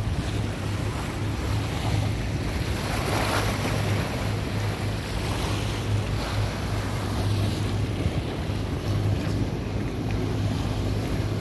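Small harbour waves lapping against the rocky base of a concrete seawall, with wind buffeting the microphone, over a steady low hum.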